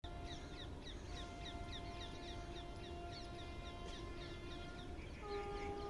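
Distant electric locomotive horn sounding long steady blasts, with a louder, slightly higher blast starting about five seconds in, as the train approaches. Birds chirp rapidly throughout, over a low rumble.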